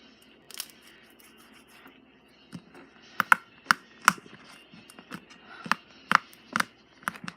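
Slime being squeezed and worked by hand, giving a run of sharp, irregular clicking pops, bunched in the second half.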